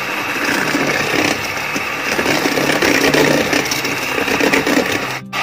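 Electric hand mixer running steadily, its beaters whipping egg and sugar in a stainless steel bowl, a constant motor hum under a dense rattle of the beaters against the steel. This is the whisking of eggs and sugar to a fluffy foam for a sponge cake. The sound breaks off briefly near the end.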